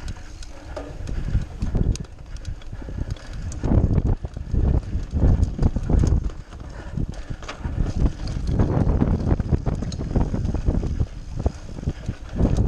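Mountain bike ridden over grass and a bumpy dirt track, heard from a camera on the bike or rider: a rough tyre rumble with the bike rattling and knocking over bumps, heaviest about four seconds in and again about eight seconds in.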